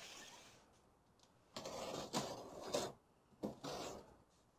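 Gerber blade cutting through packing tape along the seams of a cardboard box, in two strokes: a longer one about a second and a half in and a shorter one near the end.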